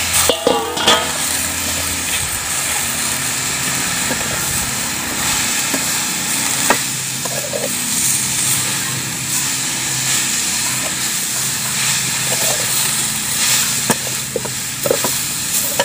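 Metal ladle stirring and turning blanched pako (vegetable fern) through dry-toasted grated coconut in a hot wok, with a steady sizzle from the pan and a few sharp clinks of the ladle against the metal.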